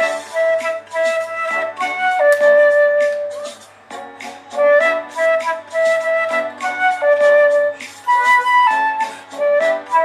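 Silver concert flute playing a pop-ballad melody, a flowing line of short notes broken by notes held for about a second.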